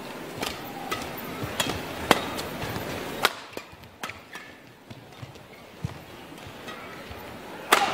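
Badminton doubles rally: sharp racket strikes on the shuttlecock, about two a second at first, then softer and sparser, with a loud smash near the end, over a low arena hum.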